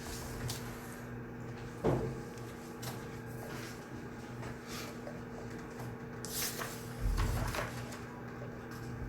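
Study room ambience: a steady low hum with scattered small knocks and rustles of people at their desks, including a sharp knock about two seconds in and a heavier low thud about seven seconds in.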